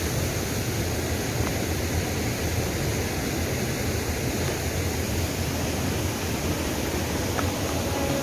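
Rocky mountain stream flowing with low water: a steady rush of water over stones.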